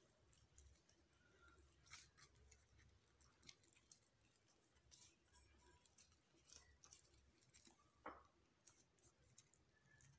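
Near silence with faint, scattered soft crackles and clicks from a thin warqa pastry sheet being folded and pressed around an almond filling by wet fingers; the plainest clicks come about two seconds in and near eight seconds.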